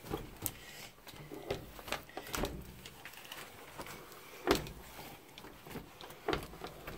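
Small mop head on a handle wiped across window glass, with a string of irregular light knocks and bumps; the loudest knock comes about four and a half seconds in.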